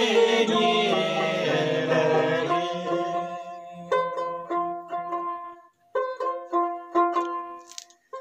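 Voices singing a traditional Hyolmo song, stopping about two and a half seconds in. A plucked string instrument then plays a run of single ringing notes, with a brief break near the middle of the run.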